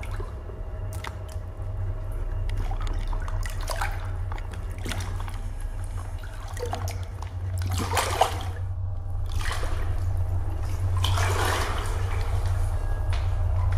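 Water splashing and trickling in a flooded concrete tunnel, in scattered bursts that grow louder about two-thirds of the way through, over a steady low rumble.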